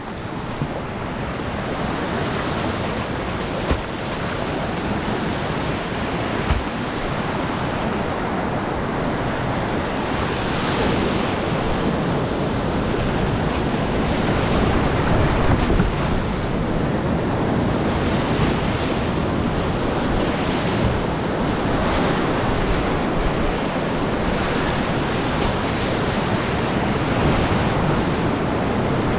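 Rushing whitewater of a creek rapid, heard close up from a kayak running it, with wind noise on the microphone. The rush grows gradually louder as the rapid gets nearer.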